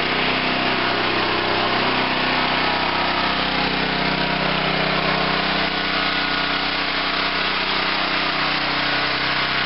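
A small petrol engine running steadily at an even speed.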